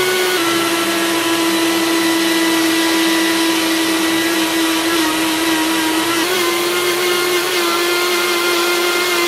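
Electric mixer grinder running steadily with a high motor whine while it churns cultured cream with cold water into butter. Its pitch shifts slightly twice. The sound of the mixer is the cue for when the butter has separated from the buttermilk.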